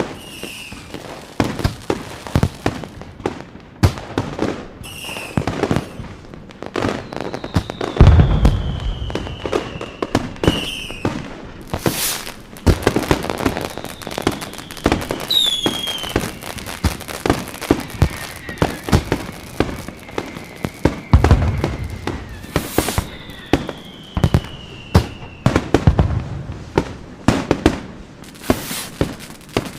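Fireworks going off in a rapid, continuous series of sharp bangs and crackles, with a few deep booms and several whistling rockets, some gliding down in pitch.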